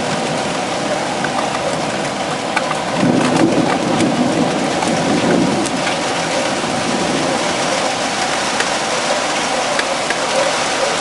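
Heavy thunderstorm rain pouring down steadily, with many sharp drops and splashes hitting hard surfaces. A low rumble of thunder swells from about three seconds in and fades by about six.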